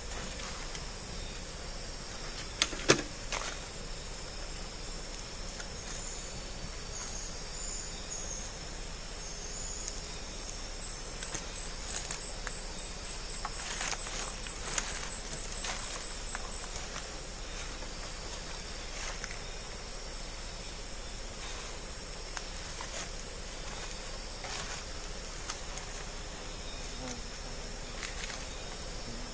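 Tropical rainforest insects chorusing in a steady high hiss, with a rapid cricket-like trill for several seconds in the middle and a few scattered clicks.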